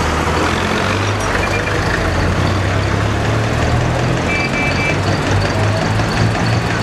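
Old tractor engines running at low speed as tractors drive past one after another, with a steady low putter. There are a few short high beeps about four seconds in.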